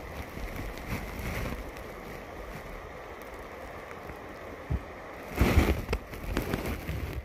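Water sloshing and splashing close to the microphone, with a louder splash about five and a half seconds in.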